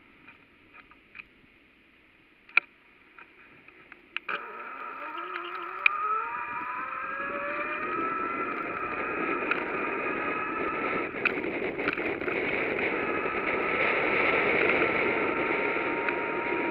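A few light clicks, then about four seconds in a bicycle rolls off and picks up speed. A hum from the tyres and drivetrain rises in pitch, then settles into steady rolling road noise that grows louder.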